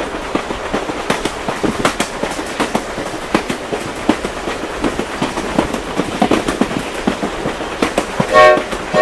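Steam train running with a dense, irregular clatter of knocks and hiss. It ends in two short chord-like whistle blasts, and the sound cuts off abruptly after the second.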